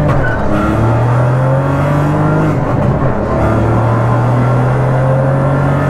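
Remapped 1-litre three-cylinder turbocharged TSI engine of a rally-prepared Volkswagen Polo on a racing exhaust, loud inside a cabin with no sound insulation, pulling through the gears. Its note drops near the start and again about two and a half seconds in, then holds steady.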